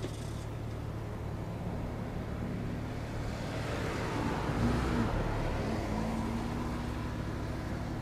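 A motor engine passing by, over a steady low hum. Its rushing sound swells to its loudest about halfway through, then eases off.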